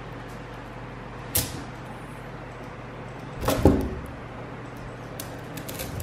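Small magnetic balls and magnets clicking and snapping together on a tabletop. There is one sharp click a little over a second in, then a louder clatter of several clicks with a dull thud about halfway through, and a few faint ticks near the end.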